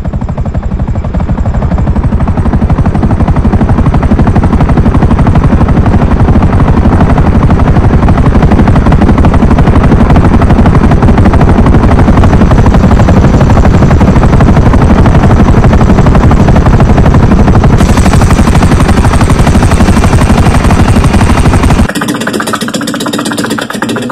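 Helicopter flying low and close, its rotor blades beating fast and very loud. Near the end the sound drops suddenly to a much lower level.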